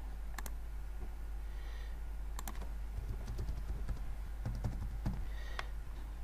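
Computer keyboard keystrokes and a few clicks, scattered and irregular, over a steady low hum.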